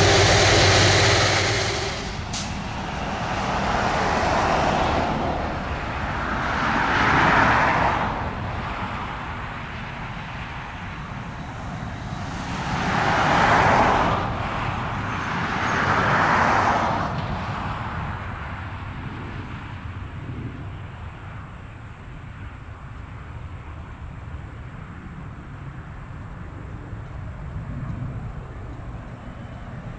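Jet aircraft noise fading away in the first two seconds, then road vehicles passing one after another, four swells in all, before a low steady rumble of traffic.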